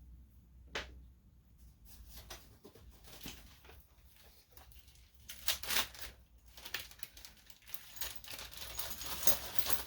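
Hands working on small car parts and tools: scattered clicks, taps and rustling, sparse at first and busier in the second half.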